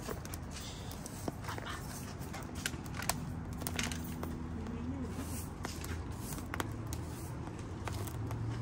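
Newly lit wood fire of split logs crackling: irregular sharp pops and snaps over a low steady rumble.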